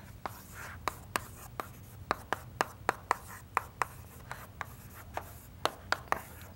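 Chalk writing on a chalkboard: a quick series of short chalk taps and strokes, about three a second, as letters are written.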